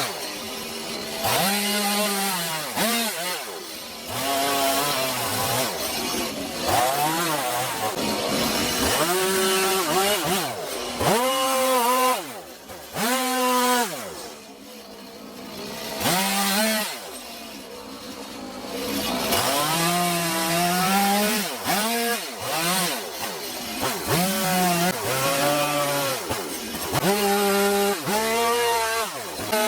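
Chainsaw carving into a wood stump, its engine revving up and down over and over as it cuts, dropping back to a quieter idle for a few seconds about halfway through.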